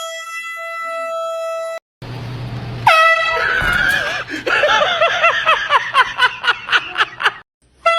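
Handheld air horn blasting a steady, piercing note for about two seconds before cutting off abruptly. A second blast starts about three seconds in, followed by a high-pitched voice crying out in quick repeated yelps, and another blast starts right at the end.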